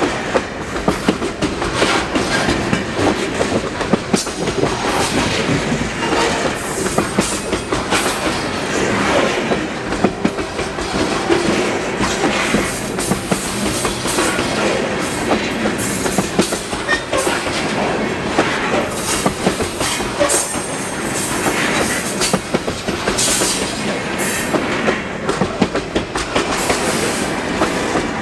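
Loaded sulfur freight cars rolling past, wheels clacking and rattling steadily over the rail joints.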